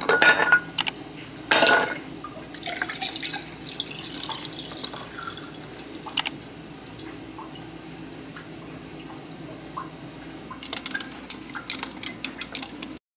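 A few sharp clinks against a drinking glass, then iced coffee and milk poured into the glass in a steady stream. Near the end, a metal straw clinks rapidly against the glass as the drink is stirred.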